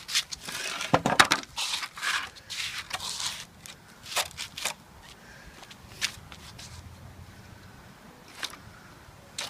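Pieces of scrap wood being handled and pulled from a pile: irregular scraping, crackling and knocking of boards against each other, busiest in the first few seconds and loudest about a second in, then only a few scattered clicks.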